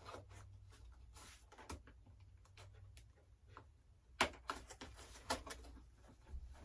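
Faint clicks and taps of hands handling and prying at the foam and plastic parts of an RC model jet, with a few sharper clicks from about four to five and a half seconds in, over a low steady hum.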